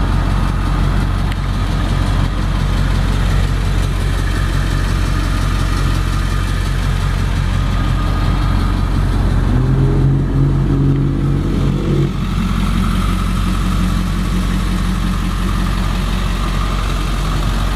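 Ford 7.3 L Powerstroke turbo-diesel V8 idling steadily, heard at the back of the truck by the exhaust. A stronger hum joins for about two seconds a little past the middle.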